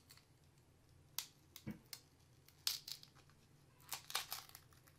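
Faint, scattered crinkles and clicks of a sealed cardboard 'Dare to Tear' trading card being peeled and torn apart by hand, with a quick cluster of them about four seconds in.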